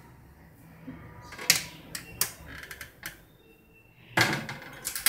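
Kitchen cupboard things being handled: a few separate sharp clicks and light knocks, then a louder, busier clatter about four seconds in.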